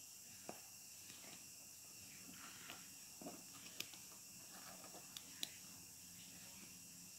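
Near silence: faint room hiss with a few soft, scattered clicks and taps from handling a multimeter's probes on a 9-volt battery.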